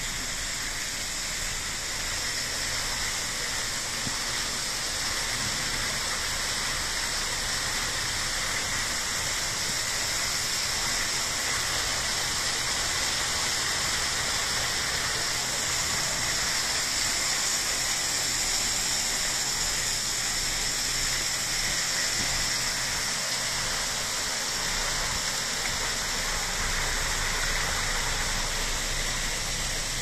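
Small waterfall splashing down a rock face into a stream, a steady rush of water.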